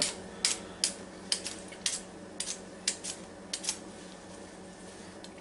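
Potato peeler scraping along a raw potato in quick, short strokes, about a dozen in the first four seconds, then stopping.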